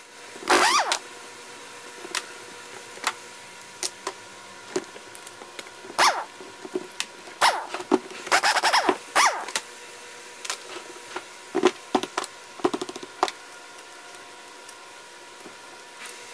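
Cordless impact driver running in short bursts, each rising in pitch as the motor spins up, backing bolts out of an outboard powerhead's crankcase. Between bursts, sharp clicks and clinks of metal bolts and parts being handled and set down.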